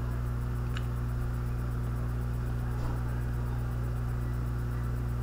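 Steady electrical mains hum on the recording, a low buzz with several pitched overtones and no change in level, with two faint clicks about a second and three seconds in.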